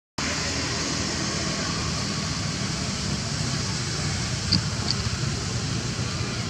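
Steady, even background noise with no distinct source, broken by two brief faint high chirps about four and a half and five seconds in.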